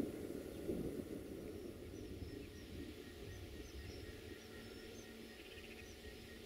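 Open-air background with a low rumble dying away, and faint, scattered high bird chirps above it.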